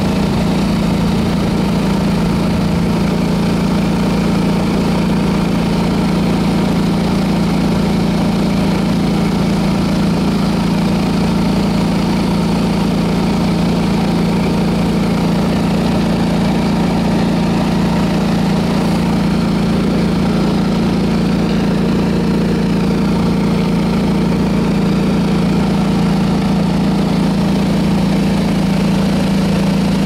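Honda four-wheel-drive garden tractor's engine running steadily under load, powering a front-mounted snowblower that throws snow out of its chute.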